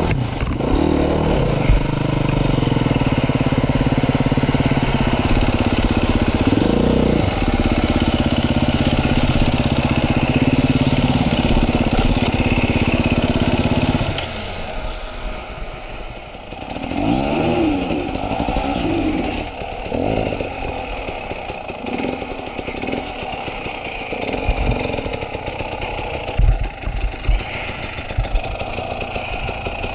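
KTM enduro motorcycle engine heard from on the bike, running steadily under load for about fourteen seconds. It then drops to a lower, uneven running with several short revs that rise and fall, and a few knocks near the end.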